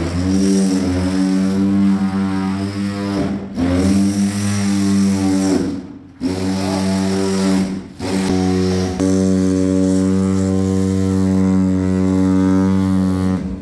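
A power tool's electric motor running with a steady hum, cutting out briefly three times with a slide in pitch as it picks up again, and stopping near the end.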